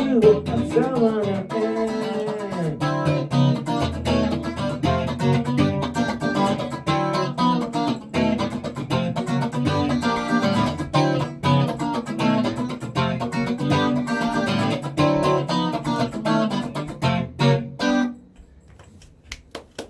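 A rock band playing the instrumental ending of a song, with guitar chords over bass and drums, which stops abruptly about eighteen seconds in, leaving faint room noise.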